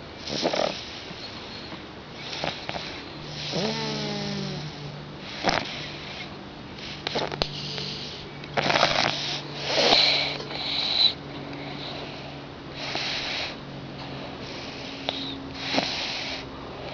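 Snoring through a nose stuffed up from a cold that is nearly over: noisy, nasal breaths every second or two, with a brief squeaky whistle about four seconds in.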